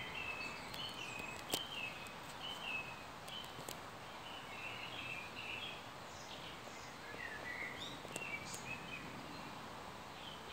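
Garden birds chirping and singing in short, quick phrases scattered throughout, with a few sharp clicks, over a steady outdoor background hiss.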